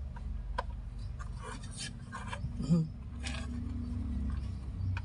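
Light clicks, rubbing and scraping of plastic dashboard parts being handled and fitted by hand, over a steady low hum. One brief, louder low sound a little past halfway is the loudest moment.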